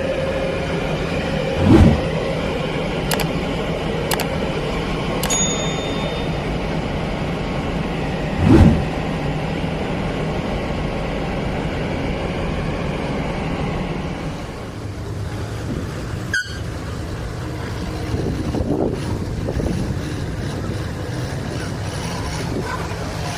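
A heavy machine's engine running steadily, with two dull thumps about two and eight and a half seconds in, a brief high metallic ding in between, and a sharp click later on.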